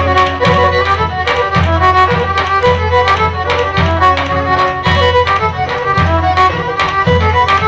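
Pontic lyra playing a fast dance tune over a steady beat on a daouli drum, about two strokes a second.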